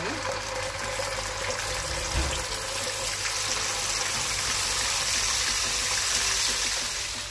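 Chilli paste sizzling in hot oil in a wok as it is spooned in, a steady hiss, with one brief knock about two seconds in.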